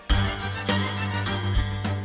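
Instrumental background music, with a held low bass note entering just after the start and a few notes struck over it.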